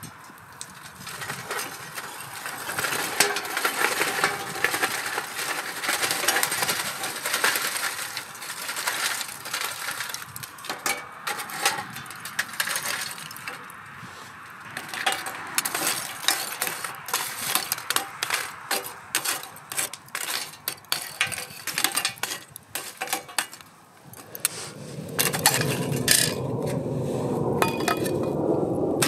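Burning charcoal tipped from a charcoal chimney starter onto a metal grate, the coals clinking and crackling with many sharp ticks and pops. A steadier rushing sound comes in near the end.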